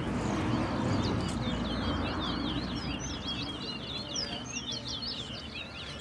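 Caged towa-towa (chestnut-bellied seed finch) singing in a song contest: a rapid, continuous run of short, sliding whistled notes over steady low background noise.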